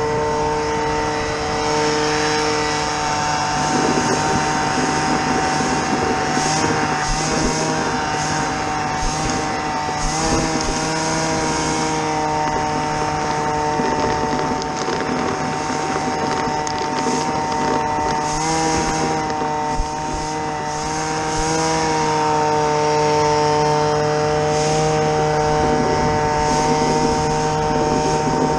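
Small engine running steadily at one speed, its pitch wavering slightly a few times, with a hiss of air or debris over it.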